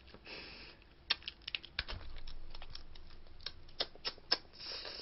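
Snow crab being eaten close to the microphone: scattered small clicks and cracks of shell as the leg meat is pulled and sucked out, with short sucking hisses near the start and near the end.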